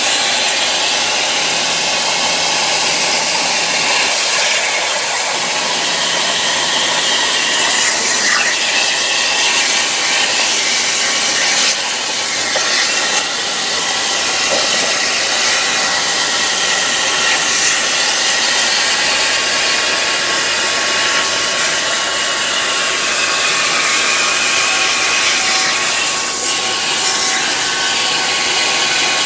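CNC plasma cutter torch cutting sheet metal at 30 amps: a loud, steady hiss with a faint steady whine.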